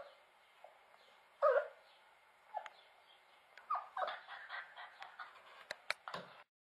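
Chow chow puppy making short calls, a loud one about a second and a half in, then a run of smaller ones, with a few sharp clicks near the end.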